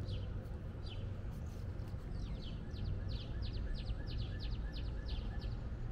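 A songbird singing: a single chirp about a second in, then a run of quick down-slurred notes, about four a second, lasting about three seconds. A steady low rumble of outdoor background noise lies underneath.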